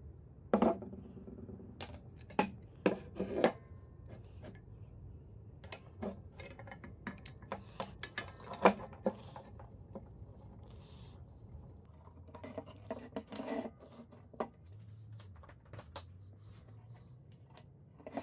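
Handling noises: a handful of sharp knocks and clicks, mostly in the first few seconds, as a small plastic-cased electric motor, its foot pedal and its power cord are picked up, set down and plugged together, with the rustle of the cord being unwound in between.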